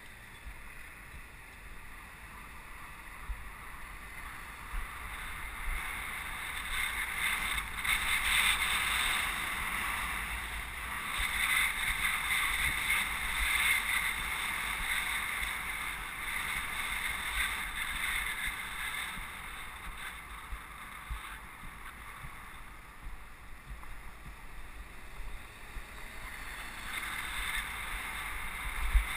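Wind rushing over a bicycle-mounted camera's microphone while riding, with low buffeting rumble and road noise; the rush swells louder through the middle stretch, then eases off. A single sharp bump sounds near the end.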